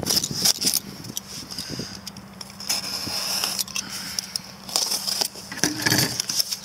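Utility knife cutting the packing tape on a cardboard box and the cardboard end flap being pried open: scattered clicks and crinkles, with two longer scraping strokes about three and five seconds in.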